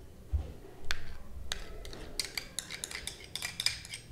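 Metal spoon clinking and scraping against ceramic bowls as thick ground-rice paste is spooned from one bowl into another. A dull knock about half a second in, then a run of quick clinks from about a second and a half.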